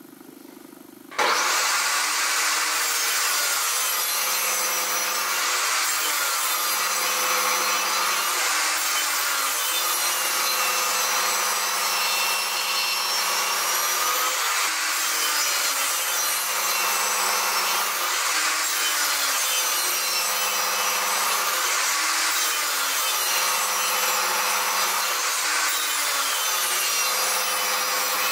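Table saw cutting repeated slots into the end of a softwood block held upright in a tenoning jig, starting suddenly about a second in. The blade's pitch sags and recovers every three to four seconds as each pass bites through the wood.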